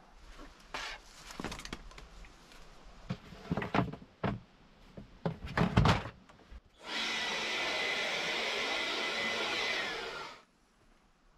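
Rustling and knocks of ropes and plastic bins being handled, then a cordless leaf blower run in one steady blast of air for about three and a half seconds before it winds down with a falling whine and stops.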